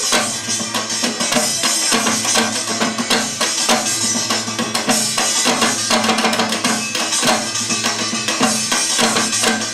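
Rapid drumming on a barrel drum struck with a mallet, over recorded backing music with a steady beat.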